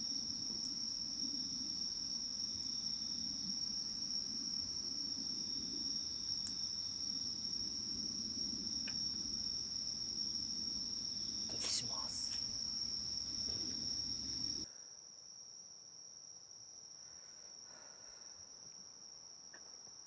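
Night insects trilling steadily at one high pitch, over the low steady noise of a campfire burning. About 15 seconds in the fire noise stops abruptly and the insect trill carries on, quieter, with a couple of small clicks shortly before.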